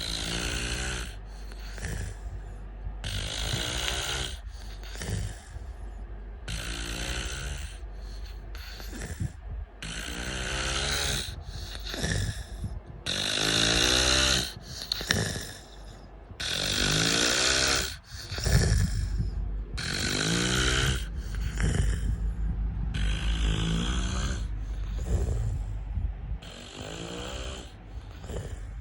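A man snoring, breath after breath in a steady rhythm of roughly one breath every three seconds.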